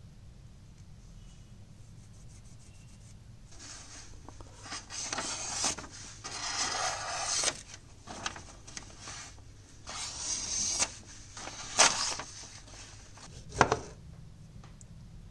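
Kitchen knife blade sawing back and forth on a tomato's skin in a series of rubbing, scraping strokes, ending in two sharp knocks as the blade comes through onto the glass plate beneath.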